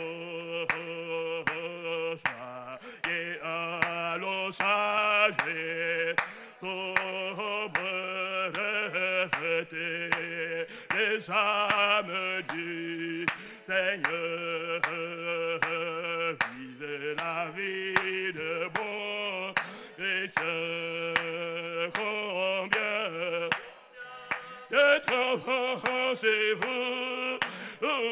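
A man's voice singing a hymn into a microphone, with hand claps keeping time.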